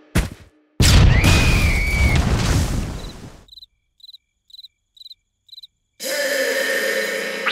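Cartoon sound effects: a loud crash with a deep rumble and a squeal over it, then about two cricket chirps a second against silence as the scene turns to night, then a long pitched whine from about six seconds on.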